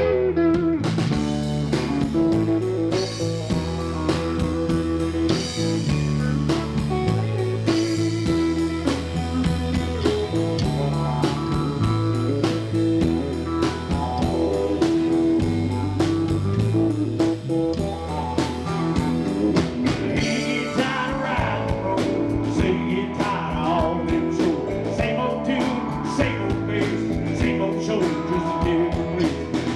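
Live country-rock band playing an instrumental break: electric guitar over bass and drums with a steady beat. In the last third, a lead guitar takes over with bending notes.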